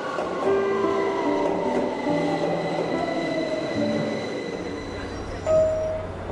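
Metro train running and slowing, its electric motor whine falling steadily in pitch over a few seconds, then settling into a low hum. Near the end a loud chime tone sounds once.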